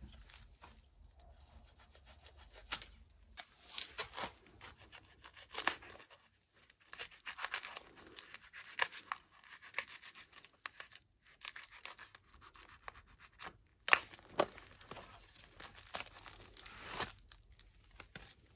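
Protective plastic and foam packaging being pulled and stripped off a new electric scooter: irregular rustling and tearing with scattered small clicks.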